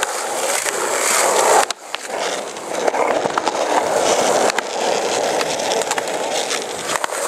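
Skateboard wheels rolling on rough asphalt, a steady rolling rumble that drops out briefly just before two seconds in, with a few sharp knocks from the board.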